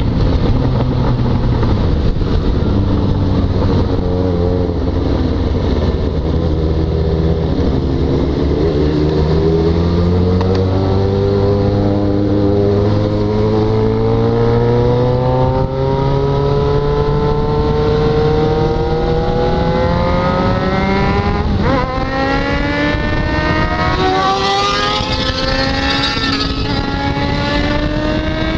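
Yamaha XJ6's 600 cc inline-four motorcycle engine pulling hard under acceleration, its exhaust note rising in pitch over a long stretch. It breaks for a gear change a little over two-thirds of the way through, then climbs again. Wind rushes steadily over the helmet-mounted microphone.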